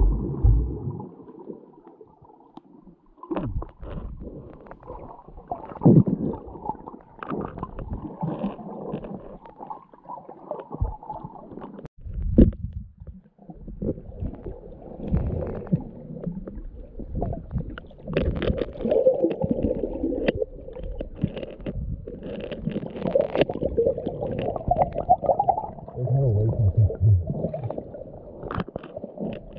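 Muffled underwater rumbling, bubbling and irregular knocks from a skin diver moving along a lake bottom, recorded with the camera underwater.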